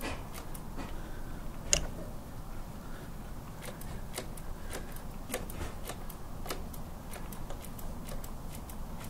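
Scattered light clicks and ticks at an uneven pace from hands working on the motorcycle brake system during bleeding, with one louder knock a little under two seconds in.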